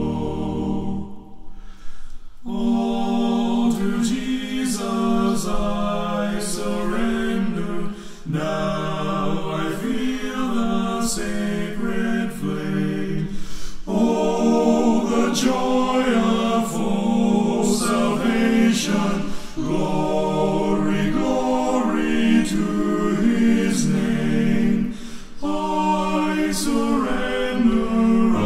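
A cappella vocal group singing a hymn in several-part harmony, with a short break about two seconds in before the next phrase.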